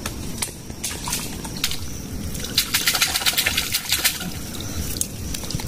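Wet mangrove mud squelching and sloshing as a crab is dug out of its burrow by hand, with a dense run of crackling clicks near the middle.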